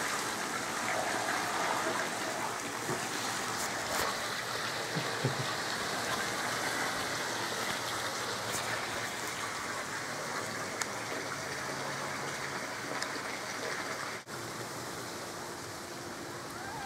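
Steady rushing hiss like running water, with a few faint clicks and taps over it.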